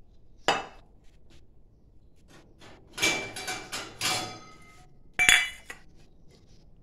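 A glass mixing bowl and a small steel bowl clinking and knocking as they are handled and set down on a stone countertop: a sharp clink about half a second in, a run of clinks and knocks with a brief ring around three to four seconds in, and a loud clink just after five seconds.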